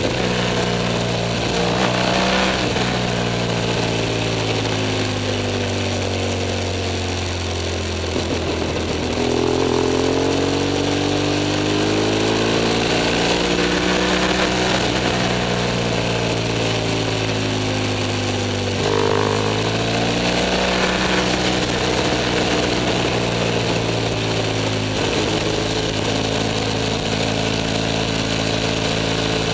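BMW F 800 S's parallel-twin engine under way, with wind and road noise. The engine note falls as the bike slows for a bend, then climbs steadily as it pulls out. About two-thirds of the way through the note breaks off and drops, then runs fairly even.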